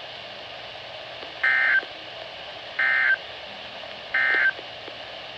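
Three short bursts of Emergency Alert System (SAME) data tones from a weather radio, each about a third of a second long and about a second and a half apart, over steady radio hiss. This is the end-of-message code that closes the severe thunderstorm warning.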